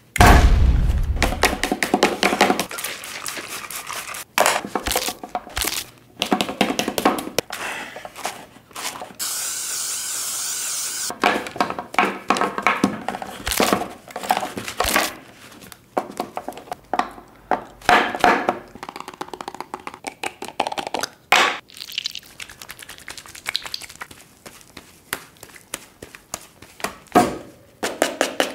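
Quick, rough hairbrush strokes and hands rubbing through a toy doll's synthetic hair, in uneven runs of short scratchy strokes with scattered knocks. About ten seconds in, a spray of hair product hisses steadily for about two seconds.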